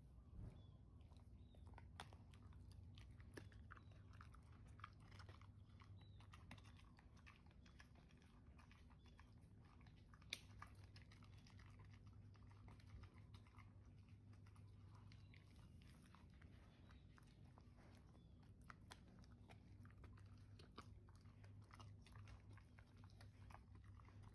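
Siberian husky chewing a dental chew stick: faint, irregular crunching and clicking of its teeth on the stick, with one sharper crack about ten seconds in.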